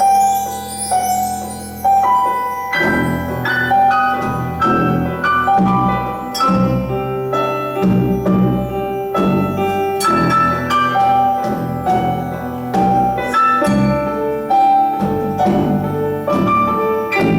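Instrumental music with a melody of short, ringing pitched notes. Lower notes join about three seconds in and keep a steady pulse under the melody.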